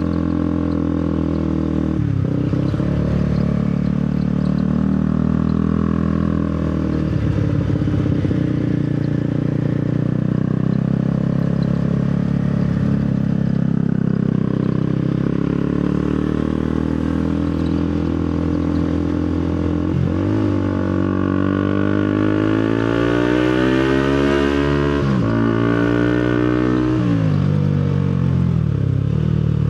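Motorcycle engine running under way, its pitch rising and dropping with the throttle and gear changes. About two-thirds of the way through it climbs steadily under acceleration, then drops sharply at an upshift.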